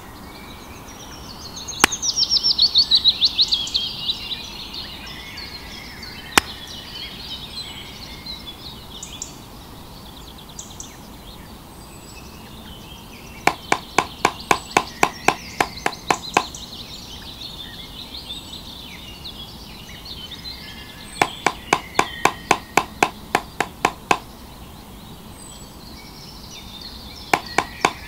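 Quick light knocks, about four a second, in three runs of two to three seconds, as thin twig posts are tapped down into sand with a small hand-held striker. Birdsong runs throughout, with a loud trill about two seconds in.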